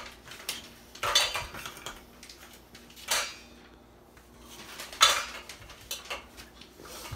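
Stainless steel mixing bowl clanking and rattling as a toddler handles it and the small plastic toys in it, with three louder clanks about two seconds apart and lighter clicks between.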